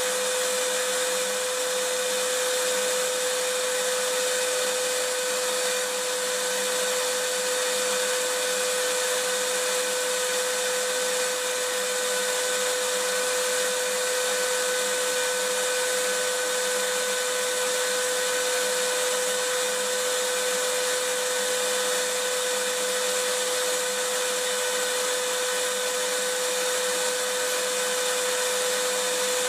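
Vacuum cleaner running steadily, a continuous hiss with a steady hum near 500 Hz that holds at one level throughout, used as white noise.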